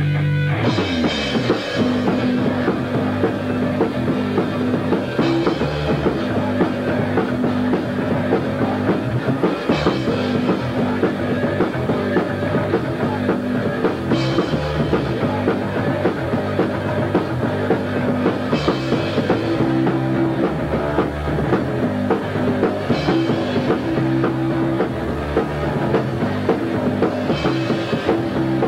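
Punk rock band playing: electric guitar, bass and drum kit, with a cymbal crash about every four and a half seconds. A held guitar chord gives way to the full band at the very start.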